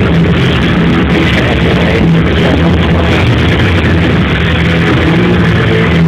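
Loud rock music playing continuously, with held bass notes.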